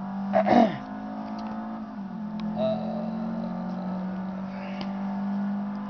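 A steady low hum, with brief rustles and clicks as plastic card-binder pages are turned; the loudest rustle comes about half a second in.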